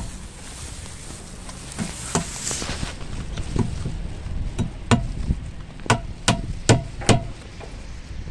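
Steel claw hammer driving nails into a wooden formwork board: a few light taps in the first half, then a run of about five hard blows roughly 0.4 s apart.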